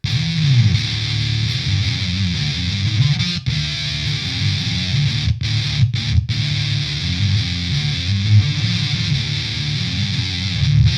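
Electric guitar played through the GameChanger Audio Plasma Coil fuzz pedal: a thick, heavily distorted riff with a few short sharp stops in the middle.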